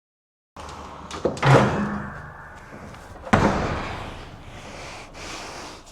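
Two loud bangs about two seconds apart, with rattling between and after them: the attic access being pulled shut on the way down from the attic.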